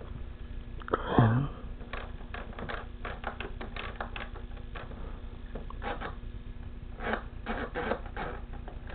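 Irregular light clicks and taps of a hand handling a small plastic RC helicopter transmitter. About a second in there is a short vocal sound that falls in pitch.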